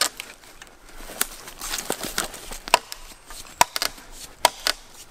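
Gransfors Small Forest Axe chopping into a green ash log: a run of sharp blows, roughly one every half second to a second, as the log is cut through.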